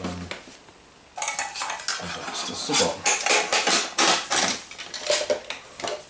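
Metal clattering and clinking of a German army (Bundeswehr) aluminium mess kit being taken apart and handled, its pot and lid knocking together. One knock at the start, then from about a second in a quick run of clinks and rattles.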